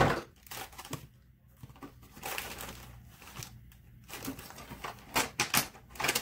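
Paper rustling and scraping as sheets are handled, in a string of short bursts about a second apart, the loudest at the very start.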